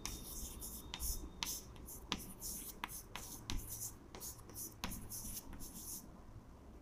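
Chalk writing on a chalkboard: faint scratchy strokes with light taps of the chalk, stopping near the end.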